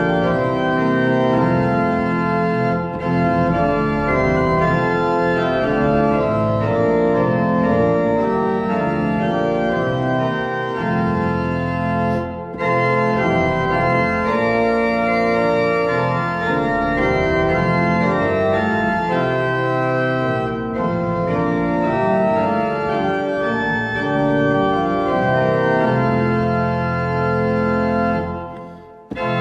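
Organ music playing sustained chords that change every second or so, fading out briefly near the end before starting again.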